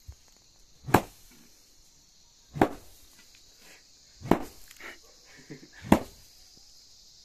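A long wooden stick beating a heap of dried finger millet on a stone floor to thresh the grain: four hard whacks, about one every one and a half seconds, over a steady high hiss.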